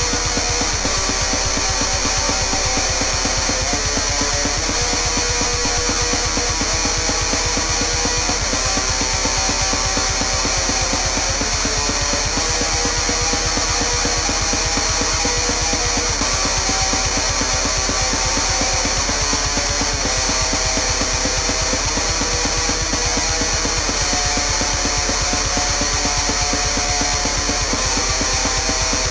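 Heavy metal music: distorted electric guitar riffs over a fast, driving drum beat, with a cymbal crash about every four seconds.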